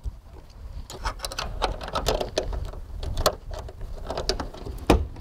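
Irregular metal clicks and rattles as the door and handle of a German-built RIC-gauge passenger coach are tugged and worked by hand, with a sharper knock near the end.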